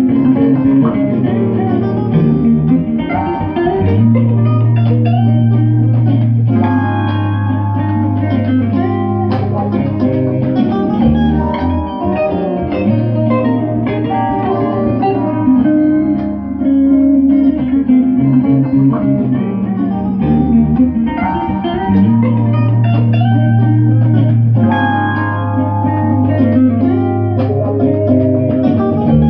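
Electric guitar music over a bass line, with long-held low notes that change every few seconds.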